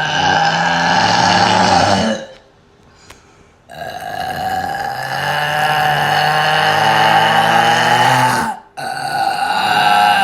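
A person burping on purpose in long, drawn-out belches: one ends about two seconds in, a second lasts about five seconds after a short pause, and a third starts near the end.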